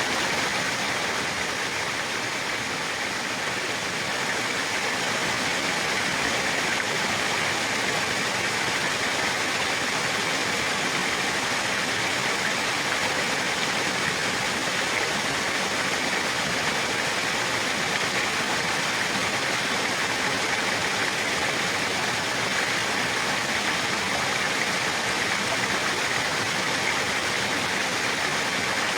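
Running water rushing steadily and evenly, with no change or break.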